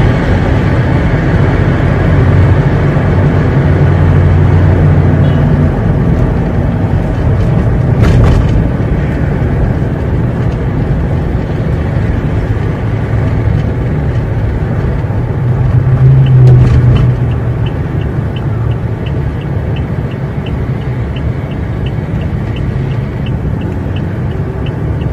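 Steady traffic noise of a drive on a city road among motorcycles and cars: a low engine and tyre rumble that swells louder about two-thirds of the way through. A faint, even ticking, about two a second, runs through the second half.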